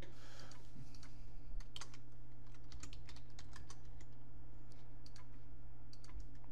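Typing on a computer keyboard: scattered, irregular keystrokes and clicks over a steady low hum.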